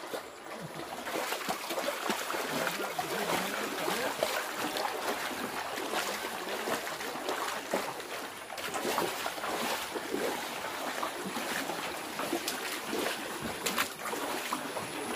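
Shallow floodwater rushing and splashing: a steady hiss of moving water with many short splashing ticks.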